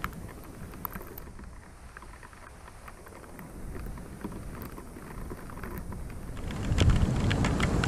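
Rain in a night thunderstorm: scattered drops ticking over a soft hiss. A low rumble dies away at the start and builds up loudly again near the end.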